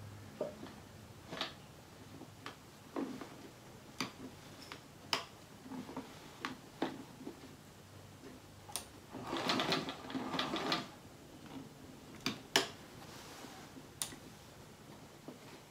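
Sewing machine quilting through the layers of a quilt in short, uneven bursts of stitching, with scattered sharp clicks and one longer, denser run about nine seconds in.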